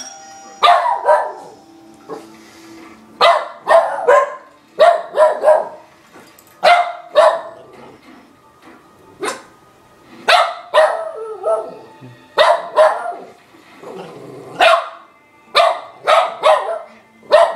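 A dog barking at the doorbell: loud, short barks in clusters of two to four, repeating every second or two.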